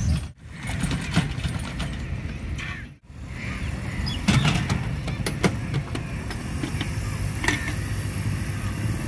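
Metal hand trolley carrying a steel trunk, rolling and rattling with scattered sharp metal knocks and creaks over a steady low rumble. The sound cuts out briefly twice in the first three seconds.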